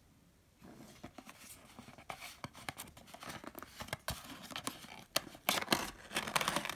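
A thin paperboard box being opened by hand: the flap lifted and the packaging inside handled, a run of scraping, tapping and rustling that starts about half a second in and grows louder near the end.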